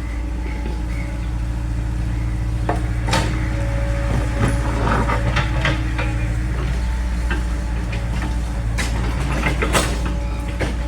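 Excavator diesel engine running steadily, with irregular metallic clanks and knocks over it.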